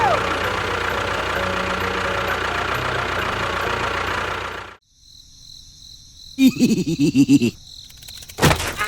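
A small motor running steadily, cutting off abruptly almost five seconds in. About a second and a half later comes a quick run of short pitched calls, then a sharp click near the end.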